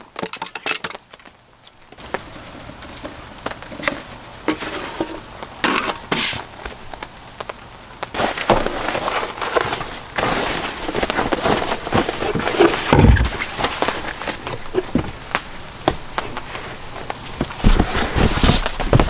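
Camping gear being handled and loaded into an SUV's cargo area: fabric bags and foam sleeping mats rustling, with scattered clicks and knocks. There is a heavy thump about two-thirds of the way through.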